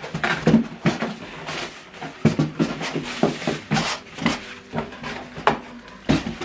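Cardboard and plastic packaging handled while a speaker is unpacked from its box: irregular knocks and short rustles.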